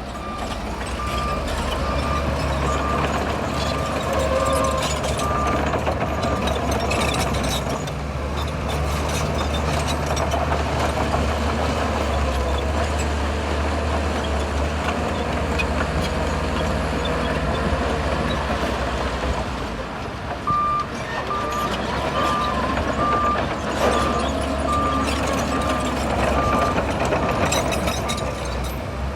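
Heavy diesel engine of a Shantui bulldozer running steadily, with a reversing alarm beeping about twice a second for the first several seconds and again through the last third.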